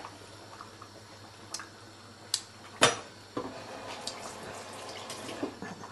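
Kitchen utensils clinking against pots of brown stew cow foot on a gas stove: a few sharp clinks, the loudest about three seconds in, with a soft steady watery sound of the stew simmering from about halfway through.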